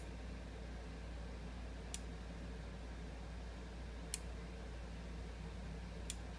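Z-axis homing limit switch on a desktop CNC machine clicking four times, about two seconds apart, as it is pressed and released by hand, over a faint steady low hum. The switch is working and registering after a Grbl v1.1 pin fix.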